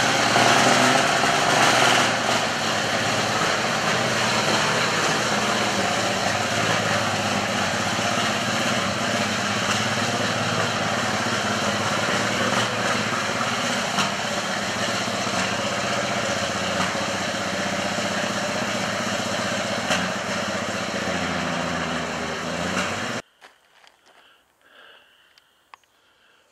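Engine of an O-11A Air Force crash truck running under load as the heavy truck drives itself out of the dirt and along a gravel lane, a little louder for the first couple of seconds. The sound cuts off abruptly near the end.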